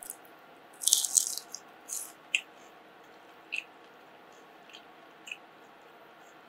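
Crisp deep-fried potato flower being broken apart by hand: a dense burst of crackling crunches about a second in, then a few short, lighter crackles.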